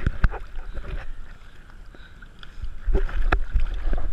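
Seawater sloshing and slapping against a surfboard's nose right at the microphone, over a heavy low rumble, with sharp splashes about a quarter second in and again around three seconds in.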